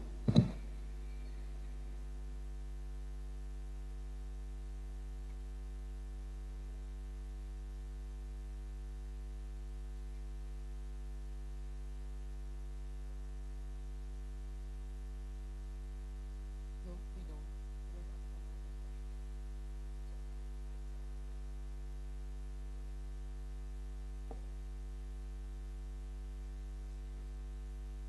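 Steady electrical mains hum: a constant low buzz with its overtones, unchanging throughout. A brief sharp sound just after the start is the loudest moment.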